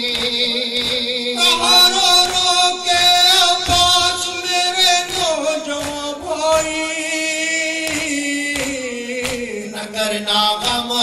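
Men's voices chanting a noha, a Shia mourning lament, over a PA microphone in long, drawn-out wavering notes. A steady run of sharp beats sounds underneath.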